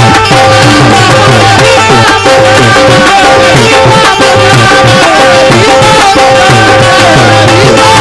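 Qawwali accompaniment with no singing: a harmonium holding steady notes over a running tabla rhythm.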